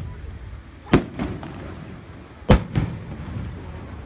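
Aerial fireworks shells bursting: two sharp bangs, about a second in and again a second and a half later, each followed by a softer second bang.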